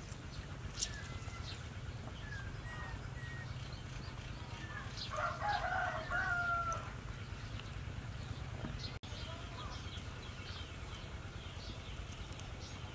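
A rooster crows once, about five seconds in, the call lasting about a second and a half and dropping at its end, over a steady low hum. Faint short bird chirps come before it.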